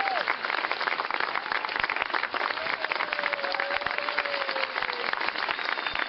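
Audience applauding steadily, with a few drawn-out calls rising over the clapping.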